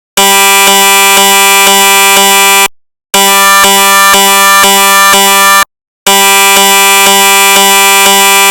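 Recreated GE SIGNA Victor MRI scanner gradient sound: a loud, steady buzzing tone that plays three times, each about two and a half seconds long with short breaks between, pulsing faintly about twice a second.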